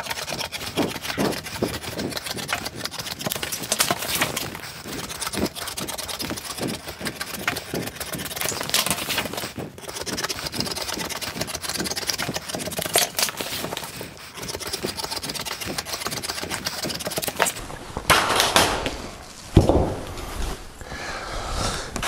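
Hand tin snips cutting along a line in thin coated roofing sheet metal, a fast run of crisp clicks and crunches as the blades take short bites, for about seventeen seconds. Near the end the cut sheet is moved, giving a few louder rattles of loose sheet metal.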